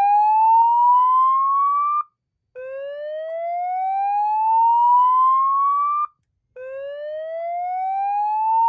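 Federal Signal 950I loudspeaker sounding a Fire-Lite ACC-25/50 panel's slow whoop evacuation tone: loud rising sweeps, each about three and a half seconds long, with a short break between. One sweep ends about two seconds in, a second runs whole, and a third begins near the end; this is the fire-alarm signal that precedes the voice evacuation message.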